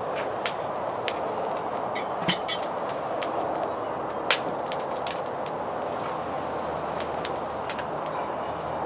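Sharp metallic clicks and clinks of hand pliers gripping and bending the red-hot horns of a forged railroad-spike dragon head held in a vise. Three come close together about two seconds in and one a little after four seconds, over a steady rushing noise.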